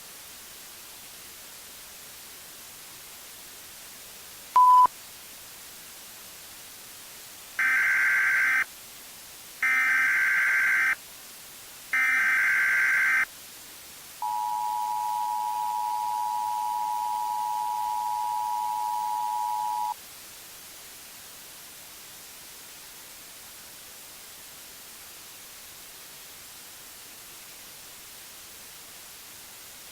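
Emergency Alert System tones over a steady static hiss: a short beep, then three short warbling SAME data bursts (the end-of-message code), then the two-tone EAS attention signal held for about six seconds and cutting off.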